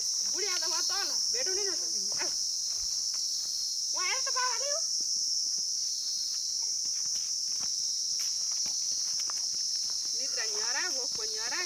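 Steady, high-pitched insect chorus from the surrounding forest, unbroken throughout. A small child's high voice babbles or calls out briefly near the start, about four seconds in and again near the end, over faint footsteps on the dirt path.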